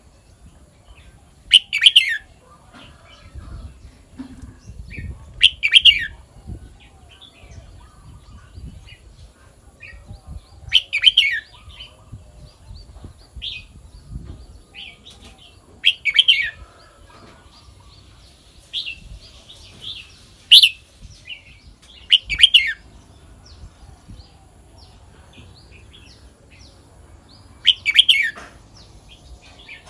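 Caged red-whiskered bulbul singing loud, short phrases, about seven of them every few seconds, with softer chirps in between.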